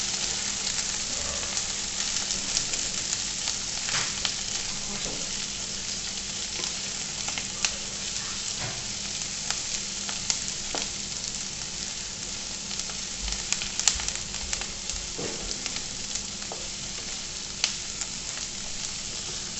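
Chopped onions sizzling in hot oil in a non-stick kadhai on a high gas flame, being sautéed until soft. A wooden spatula stirs them, with scattered scrapes and taps against the pan.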